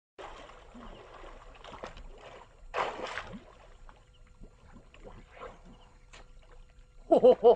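Water splashing and sloshing, with a louder splash about three seconds in and scattered small knocks. Just before the end a voice calls out a quick 'oh-oh-oh-oh'.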